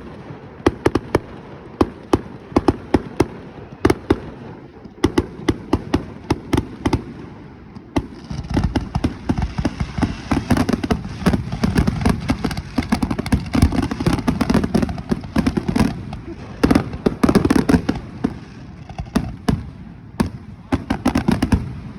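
Fireworks going off: a rapid run of sharp cracks and pops that becomes a dense crackling barrage with a low rumble about eight seconds in, and stops just before the end.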